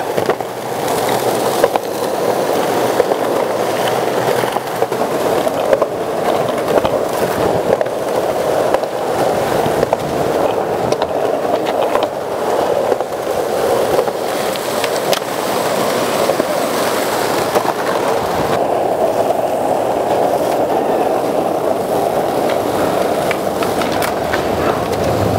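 Several skateboards rolling on asphalt: a steady rumble of wheels on the road, with occasional short clicks and knocks.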